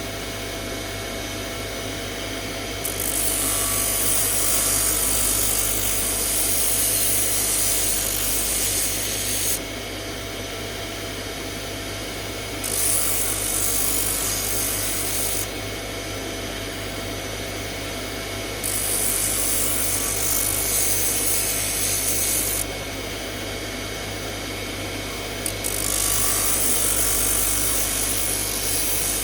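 A power tool's motor running steadily with a constant hum. Four times, for three to four seconds each, a workpiece is pressed against it and a loud abrasive rasping comes in over the hum.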